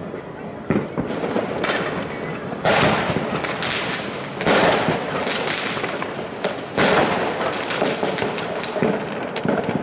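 Many fireworks going off across a city at once: a steady rattle of small cracks and pops, with several louder bangs, the biggest about three, four and a half and seven seconds in.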